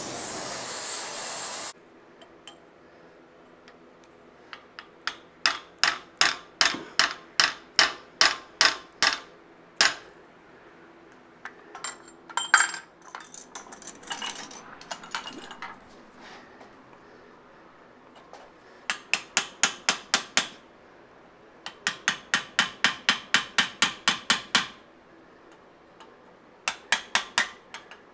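A gas torch hisses and cuts off about two seconds in. Then a hammer strikes a chisel carving red-hot Damascus steel held in a vise, in runs of sharp blows: about two a second at first, and later quicker runs of five or six a second.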